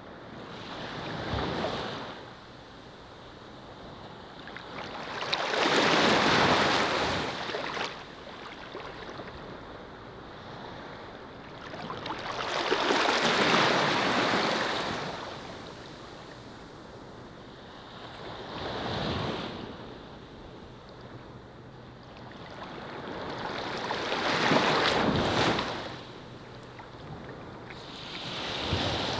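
Ocean surf: waves washing in and drawing back, the rush of water swelling and fading five times, about every six seconds.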